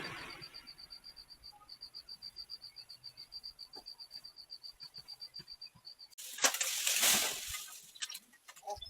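An insect chirps in a steady, even-paced trill of about eight high pulses a second, stopping about six seconds in. It is then covered by a loud rushing noise lasting about two seconds.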